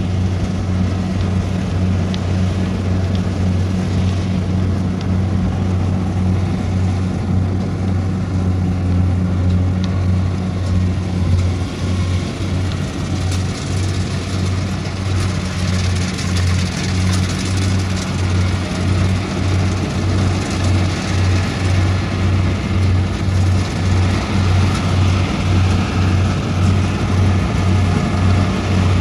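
Kubota combine harvester's diesel engine running under load while it cuts and threshes rice: a steady low drone. In the second half it takes on a regular throb of about two beats a second.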